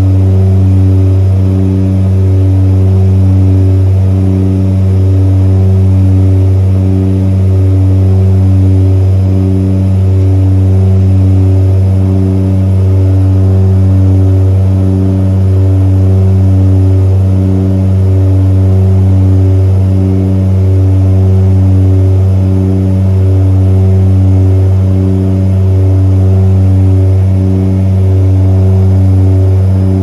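Seaplane's propeller engine droning in flight, heard from inside the cabin: a loud, steady low drone with a slow, regular throb.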